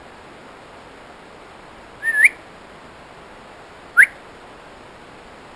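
A man whistling to call his dog: two short, loud rising whistles about two seconds apart, the first with a slight wobble in pitch, the second a quick upward sweep.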